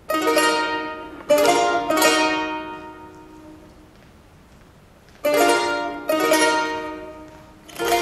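Charango strummed in single chords, each left to ring and die away: three strums in the first two seconds, a pause, then three more from about five seconds in.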